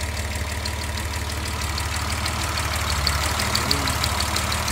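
1972 Datsun 240Z's straight-six engine with twin carburettors idling steadily with the hood open, with a light, rapid, even ticking over the running.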